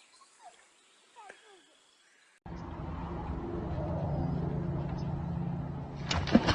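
Faint voices, then after a sudden cut a steady low motor hum with a noisy rush over it; a few sharp clicks and speech come in near the end.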